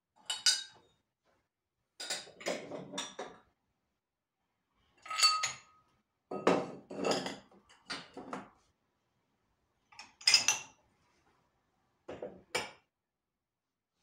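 Clean drinking glasses and dishes being lifted out of a dishwasher's wire rack, clinking against each other and the rack. The clinks come in short clusters every second or two, some with a brief ringing glass tone.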